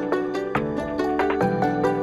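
Instrumental pop music with a quick run of plucked notes over a bass line, played through headphones and picked up by measurement microphones.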